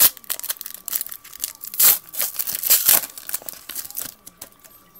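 A foil basketball card pack wrapper being torn open and crinkled by hand: a string of sharp rips and crinkles, loudest about two to three seconds in, dying down near the end.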